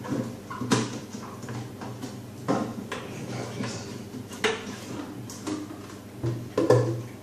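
Hard plastic parts of a protein skimmer knocking and clicking as they are handled and fitted into the skimmer case: a handful of separate knocks a second or two apart, the loudest near the end, over a steady low hum.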